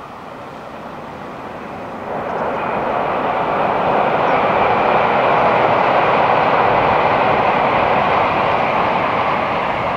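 Tokaido Shinkansen bullet train passing at high speed over a steel truss bridge: a rushing rumble that swells about two seconds in, holds loud, and starts to fade near the end.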